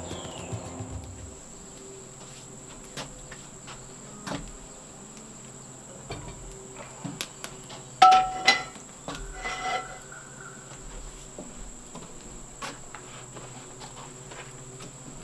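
Insects trilling steadily in one continuous high tone, with scattered small knocks and a louder short ringing sound about eight seconds in and again near ten seconds.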